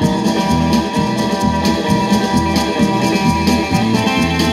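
Instrumental rock and roll with guitar and drums, playing from a 45 rpm vinyl single on a turntable, with a steady beat.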